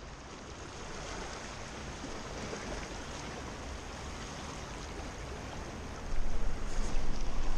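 Small waves washing on a beach, a steady hiss of surf. About six seconds in, wind starts buffeting the microphone with a louder, gusty low rumble.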